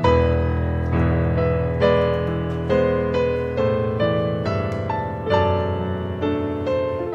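Solo piano music: a slow, gentle piece of notes and chords struck one after another, each fading before the next.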